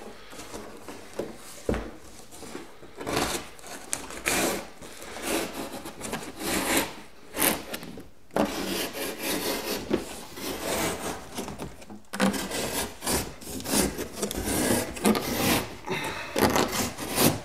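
Corrugated cardboard shipping carton being cut along its side and pulled open by hand: an irregular run of rasping scrapes and rubs that starts about three seconds in and gets busier toward the end.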